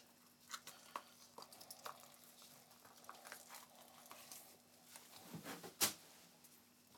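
Faint wet squelches and small clicks of gloved fingers pulling the lungs and heart out of a skinned rabbit carcass. A single sharper knock about six seconds in.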